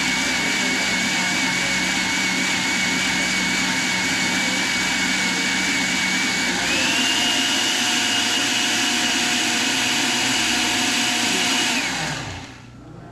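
Countertop blender running steadily, puréeing hot fish broth with boiled cassava to make it creamy. Its whine steps up in pitch about halfway through as the speed goes up, and near the end it is switched off and winds down.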